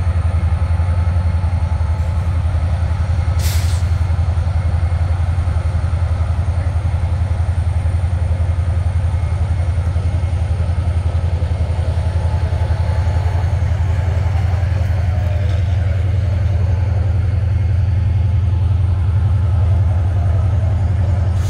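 Steady low rumble of CSX diesel locomotives idling in the yard, with a short hiss about three and a half seconds in.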